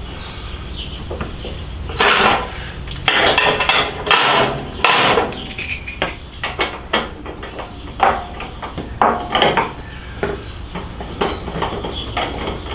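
Hand tools and metal hardware clinking and knocking irregularly as bolts are worked back in, with a few short scraping or rasping bursts in the first half.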